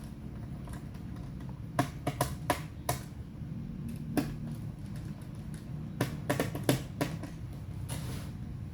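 Sharp plastic clicks and taps from working on a laptop, in two quick clusters of about five with a few single ones between, over a steady low hum.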